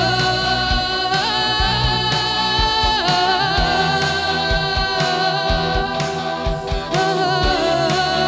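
Live worship band playing a slow song: a woman sings held, wavering notes over keyboard, electric guitar and bass, with drums keeping a steady beat.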